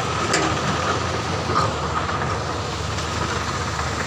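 Heavy diesel machinery running steadily: an excavator working over a dump truck with truck engines idling, a low rumble with a steady high hum and a couple of light knocks.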